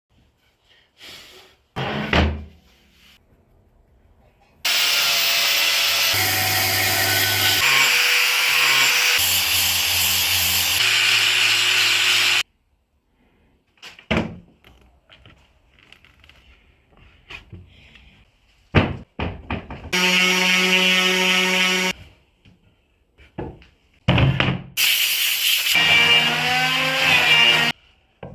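Woodworking power tools running on walnut in several short bursts that start and stop abruptly, with scattered knocks and taps in the gaps between them.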